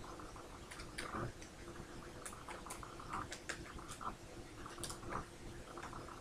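Small Transformers collectible figurine being worked onto its display base by hand: scattered light plastic clicks and taps at an irregular pace.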